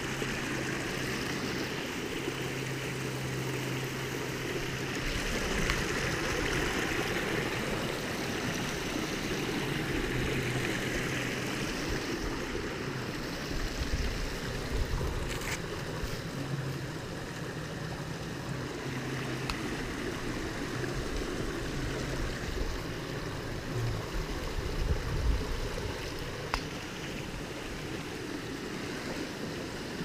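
Steady rush of whitewater in a rain-swollen creek below a waterfall, with a few brief knocks.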